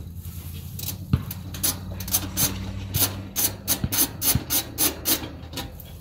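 Ratchet wrench with an 8 mm socket backing out the sheet-metal bolts on a heat pump's access panel: a run of quick ratcheting strokes, about three to four a second, through the second half. A steady low hum runs underneath in the first half.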